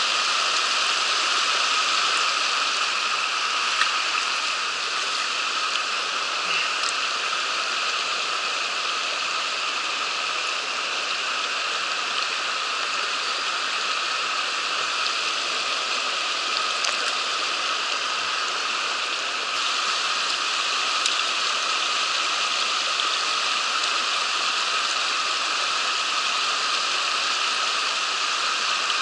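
Mountain stream water rushing steadily: an even, unbroken wash of flowing water.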